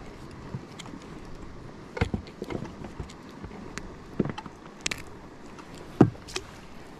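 Scattered knocks and clicks from handling aboard a small inflatable fishing boat, over a steady background hiss; the sharpest knock comes about six seconds in.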